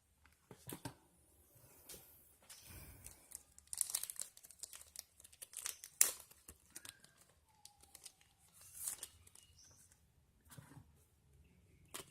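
Plastic crinkling and rustling as a new phone and its wrapping are handled, with scattered sharp plastic clicks; the sharpest click comes about six seconds in.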